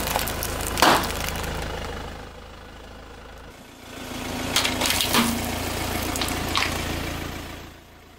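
Car creeping forward with its engine running low, a loud pop about a second in as a sealed snack bag bursts under the tyre. Then the tyre rolls onto a plastic soda bottle packed with candy-coated chocolates, crunching and cracking it a few times from about four and a half seconds in, with one more crack a little later.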